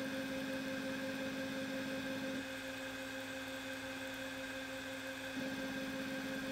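Two Trees TTS-55 laser engraver's stepper motors whining low and steady as the gantry slowly moves the laser head through a cut at 200 mm/min, over a constant machine hum. The whine stops about two and a half seconds in and comes back about five and a half seconds in as the cutting path changes direction.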